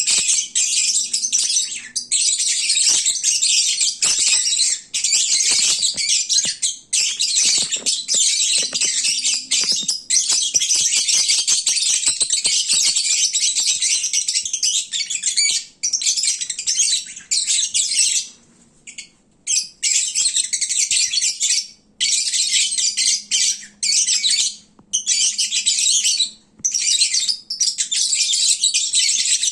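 Lovebirds chattering and squawking loudly, a dense, almost unbroken shrill twittering with a few short pauses midway. This is the noisy chatter that lovebirds make when they are full and drowsy.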